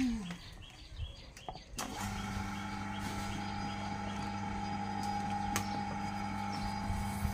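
Electric potter's wheel motor starting about two seconds in, then running with a steady hum.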